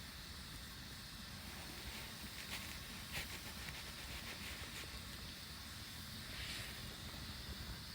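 Wood campfire burning, crackling softly with scattered small pops, a few of them together about two to three seconds in, over a steady low hiss.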